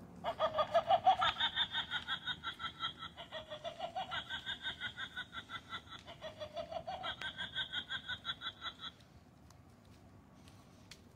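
Animated witch Halloween prop playing its recorded cackle: rapid, high ha-ha-ha laughter in three long runs, stopping about nine seconds in.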